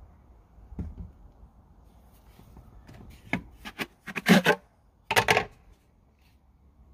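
Off-camera handling noises: a few light knocks and clicks, then two short loud bursts of scraping and rustling about four and five seconds in.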